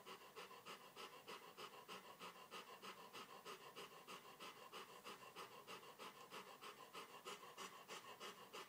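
A dog panting rapidly and evenly, about three to four quick breaths a second, faint and steady.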